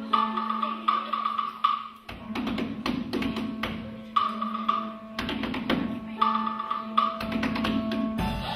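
Instrumental music: a steady held low note under short repeated higher notes, with frequent sharp knocks.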